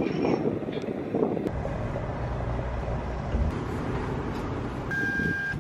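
Wind buffeting the microphone at a gas pump, then a steady low hum of fuel being pumped through the nozzle into a car's tank. A short high beep sounds near the end.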